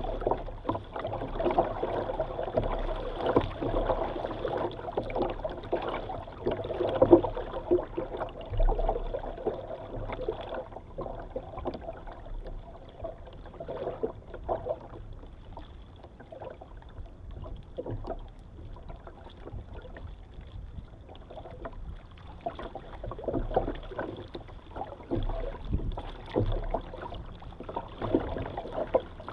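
Water splashing and lapping against the hull of a kayak as it moves through calm sea. The splashes are irregular and livelier at the start and near the end, quieter in the middle.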